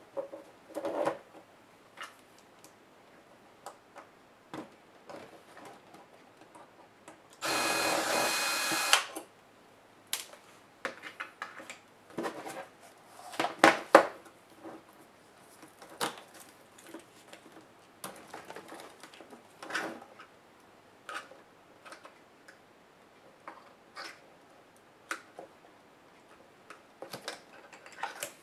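Small clicks, taps and knocks from hands working on a laptop LCD panel and its metal frame, with screws and parts being handled. About a quarter of the way in, a small electric screwdriver runs once for about a second and a half, the loudest sound.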